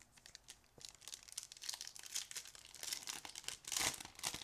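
Trading-card pack wrapper crinkling and rustling as it is handled: a run of quick crackles that grows busier, loudest shortly before the end.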